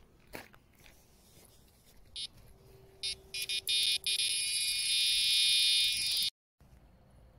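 Electronic carp-fishing bite alarm: a few separate high-pitched beeps, then a continuous shrill tone for about two and a half seconds that cuts off suddenly. This is a run, a fish taking line from the reel.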